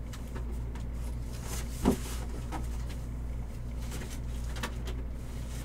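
Steady low hum with a few light clicks and taps, the sharpest one about two seconds in.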